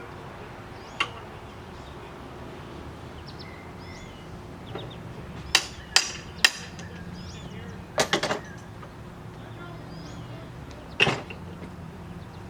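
Metal tools and power steering pump parts being handled, giving a handful of sharp knocks and clinks, some with a brief metallic ring, over a low steady hum. Faint bird chirps sound in the background.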